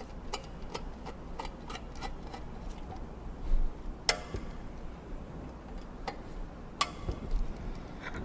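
Ratchet wrench clicking in quick, even ticks as the pump's coupling guard screws are driven down to a set torque, followed by three sharper single clicks in the second half.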